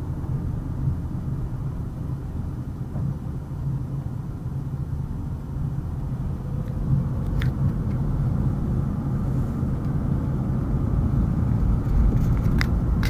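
Road and engine noise heard from inside a moving car's cabin: a steady low rumble, with a couple of faint clicks.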